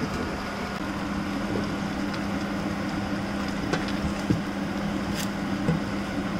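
Steady hum of a running kitchen appliance over the noise of a boiling pot, with a few light taps of a wooden spoon against the steel pot in the second half as the malunggay leaves are stirred.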